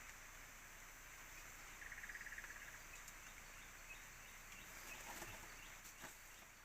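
Faint rainforest ambience: a steady low hiss, with a short rapid trill from a bird or insect about two seconds in and a few soft ticks near the end.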